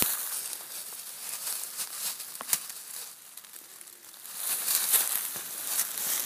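Footsteps crunching through dry fallen leaves, with twigs and branches brushing and snapping. The crackling grows louder about four and a half seconds in.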